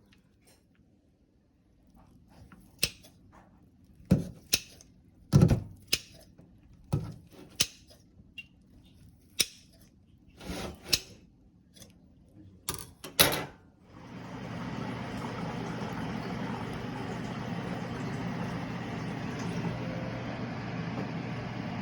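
Kitchen clatter: a string of sharp knocks and clicks of utensils and containers being handled. About two-thirds of the way in, a steady low motor hum starts and runs on, like a kitchen appliance switched on.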